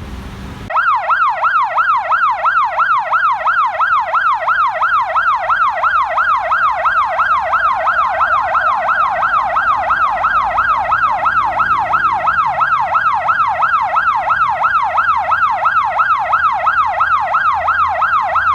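8200B electronic siren sounding a fast yelp tone, its pitch rising and falling about three times a second. It starts about a second in and holds steady.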